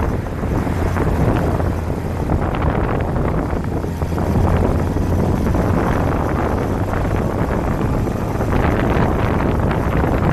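A 1992 Kawasaki Zephyr 550's air-cooled inline-four engine running steadily while riding, with wind noise on the bike-mounted microphone.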